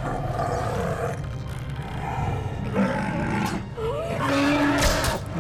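Cave troll roaring several times, a large creature's film sound effect, over a low rumble.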